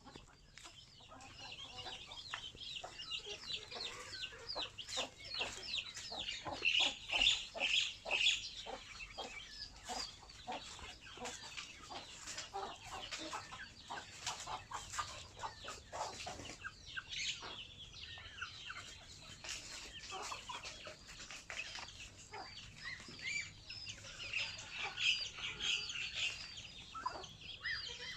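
A flock of chickens clucking and calling, with many short high calls overlapping all the while. The calls grow loudest in flurries about a quarter of the way in and again near the end.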